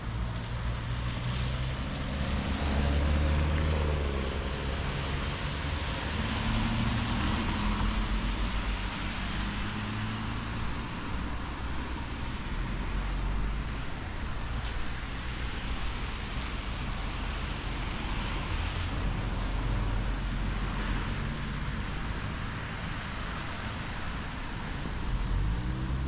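Road traffic on a wet road: car tyres hissing on wet asphalt over a low engine hum that rises and falls as vehicles pass. Near the end a car comes closer and gets louder.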